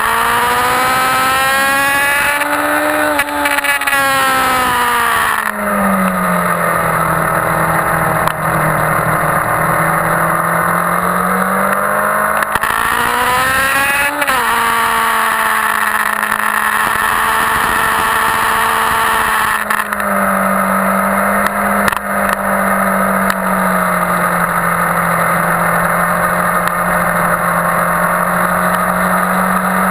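2001 Yamaha YZF-R1's inline-four engine at high revs, heard onboard under wind noise. Its pitch climbs and falls with throttle and gear changes, with a long climb to a peak that drops sharply about 14 seconds in at a gear change.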